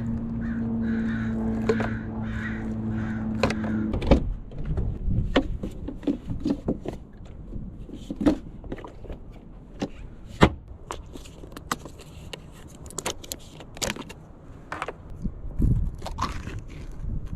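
A steady hum with repeated calls over it, cutting off about four seconds in with a knock; then scattered knocks and clicks.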